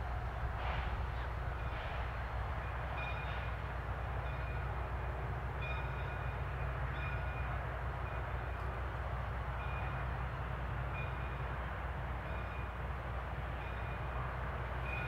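Steam locomotive standing still and venting steam: a steady hiss over a low rumble.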